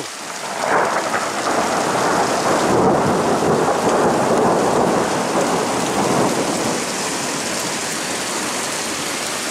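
Thunder rumbling through a heavy rainstorm. It swells up under a second in, is loudest for the next few seconds, then rolls on more evenly over the steady hiss of rain.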